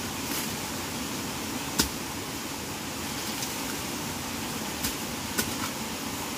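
Steady background noise with three short sharp clicks, the loudest about two seconds in and two fainter ones near the end.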